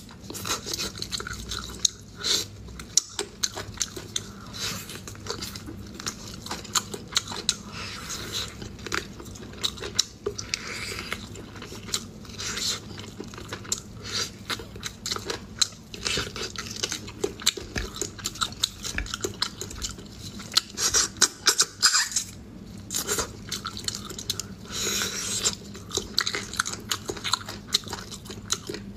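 Close-miked chewing and biting on cooked pork rib pieces, as meat is gnawed from the bone: a dense, irregular run of sharp clicks.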